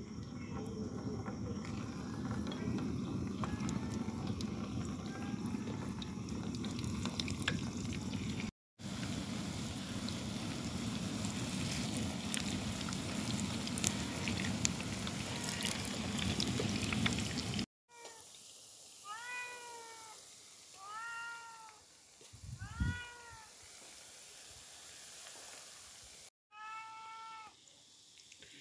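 Cauliflower kofta balls frying in hot oil in a pan, a steady dense sizzle, for most of the first two-thirds. After that a cat meows repeatedly: about half a dozen short calls that rise and fall, a second or so apart.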